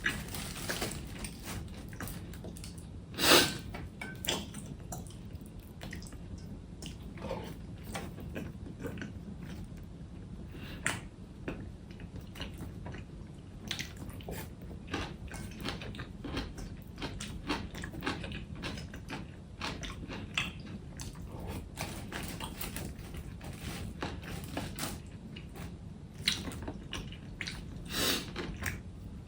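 A person eating: close, irregular biting and chewing sounds with many short wet clicks and crunches, one louder bite or clack about three seconds in.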